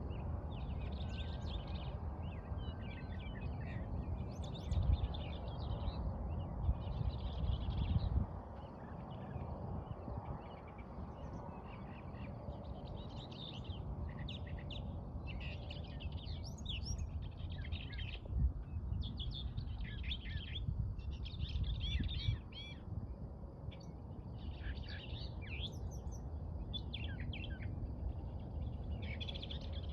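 Northern mockingbird singing: a long run of short, varied phrases, each repeated a few times before switching to the next. A low rumble sits underneath, loudest about 5 to 8 seconds in and again around 18 to 22 seconds.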